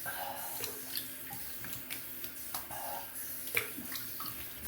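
Cold water running from a tap into a sink while a face is rinsed with the hands, with irregular splashes.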